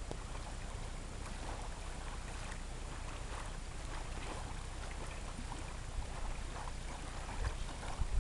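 Wind buffeting the microphone, with small waves lapping on a shingle shore and a few stronger gusts near the end.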